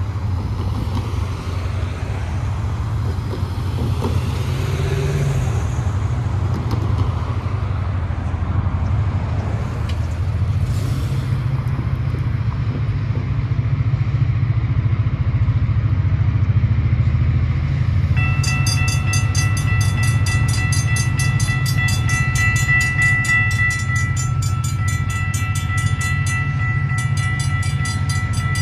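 Steady low rumble, then about two-thirds of the way through the railroad crossing's warning bell starts ringing with fast, even strokes as the signals activate and the gates begin to lower for an approaching train.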